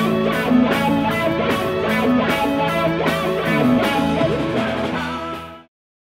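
Rock band playing: electric guitars, bass and a drum kit, with a steady beat of cymbal strokes. The music fades quickly and cuts off to silence shortly before the end.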